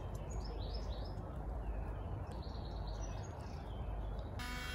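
Small birds chirping over a low, steady outdoor rumble. Near the end a small electric motor starts a steady buzz, from a handheld window vacuum.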